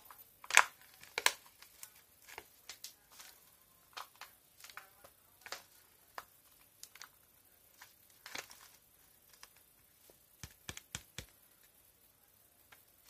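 Paper flour bag crinkling and rustling as flour is shaken out of it into a bowl: irregular small crackles, the loudest about half a second and a second in, with a quick run of sharp taps near the end.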